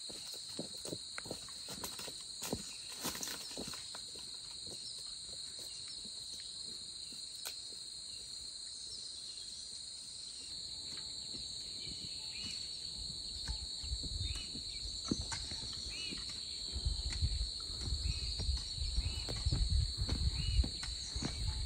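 Insects chirring in a steady high drone, with scattered soft knocks early on and low thuds from about two-thirds of the way in.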